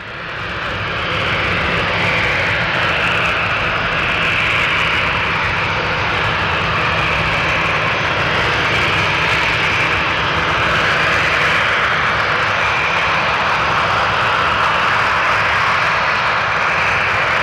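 Boeing 737-800's CFM56 jet engines running with a loud, steady roar that fades in over the first second or so.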